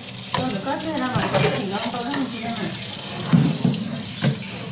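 Water running and splashing as raw shrimp are handled in a metal pot of water, with a few sharp clicks from kitchen scissors cutting the shrimp shells.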